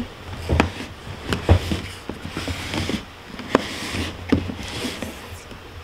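Plastic Lego brick storage box being turned and shifted on a tabletop: a handful of sharp knocks and some scraping as it is handled.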